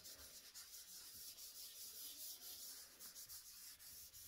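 Faint, quick back-and-forth scrubbing of a dry-erase eraser over a smooth tabletop, wiping off marker writing.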